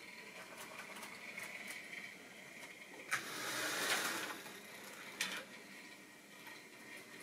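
Model train running on the layout's track: a faint whirr and rattle of the motor and wheels. About three seconds in there is a sharp click followed by a louder rushing noise for about a second, and another click a little after five seconds.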